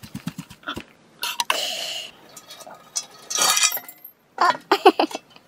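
A few light clinks and knocks of metal cutlery and cookware, interspersed with short vocal sounds such as a cough.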